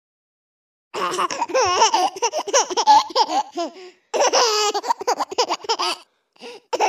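A baby laughing in high, wavering peals, starting about a second in, breaking off briefly just after four seconds and ending with two short bits near the end.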